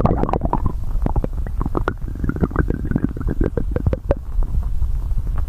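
Human stomach rumbling and gurgling: a continuous low rumble with a dense, irregular stream of quick gurgles and pops.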